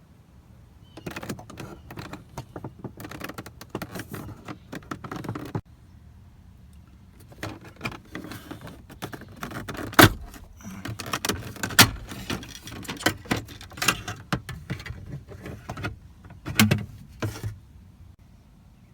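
Hard objects clattering, clicking and rattling as they are handled, in two long stretches of irregular taps, with sharp knocks about ten and twelve seconds in.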